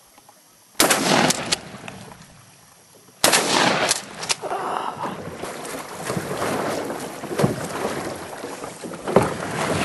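Two 12-gauge shotgun blasts about two and a half seconds apart, each ringing on for a moment. They are followed by a steady rush of noise with a few knocks.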